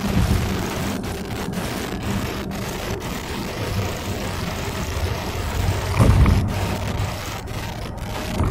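Car driving, heard from inside the cabin: steady road and engine noise with a low rumble, and a brief thump about six seconds in.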